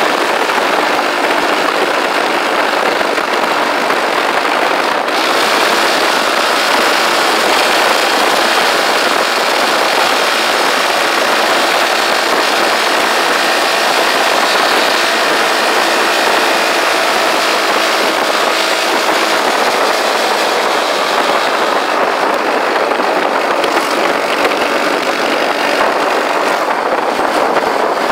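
Motorcycle engine running at a steady cruising speed, mixed with a steady rush of wind and road noise.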